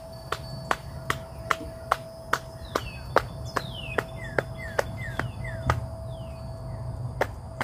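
Rhythmic body tapping: hands slapping the body about two or three times a second. A bird gives a short series of falling chirps in the middle, over a steady insect drone.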